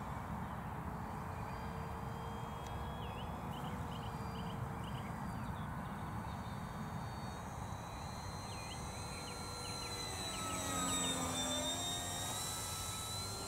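Electric motor and propeller of a Durafly Tundra RC plane whining in flight, faint at first. About ten seconds in it grows louder as the plane comes close, its pitch dipping and then climbing again.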